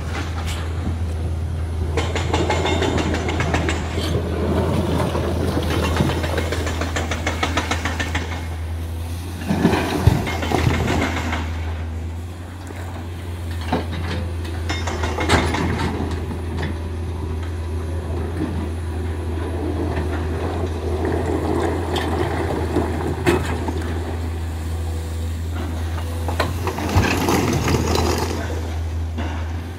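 Komatsu PC200 excavator's diesel engine running steadily as it digs, with a few louder clanks and scrapes of the bucket against rock, the loudest around ten seconds in and near the end.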